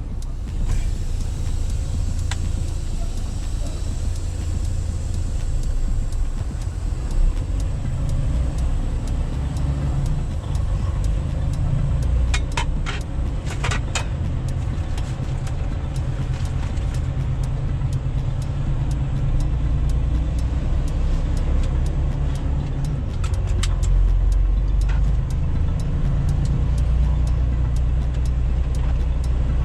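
Semi-truck's diesel engine running, a steady low rumble heard from inside the cab, with a few sharp clicks about twelve to fourteen seconds in.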